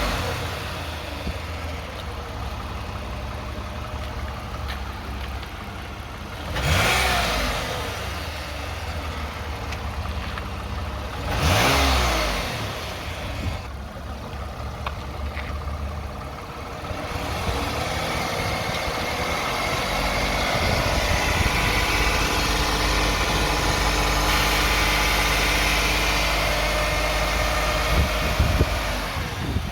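2009 Toyota Sienna minivan's engine running, revved up and back down twice, then held at a slightly higher speed. It carries the buzzing, rattling noise from between the engine and transmission that the owner suspects comes from the flex plate, torque converter or transmission pump.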